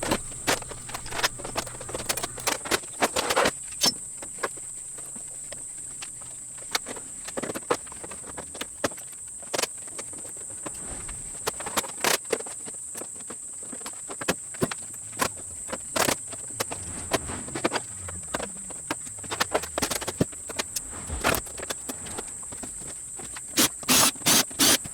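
Scattered sharp clicks and clanks of the camp table's metal legs and brackets being handled and taken apart, with a quick run of knocks near the end. A steady high insect drone runs behind.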